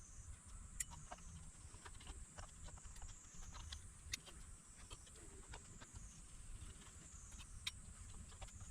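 Faint, irregular light clicks and taps of small tools and parts being handled while a portable power station is taken apart, over a steady faint hiss.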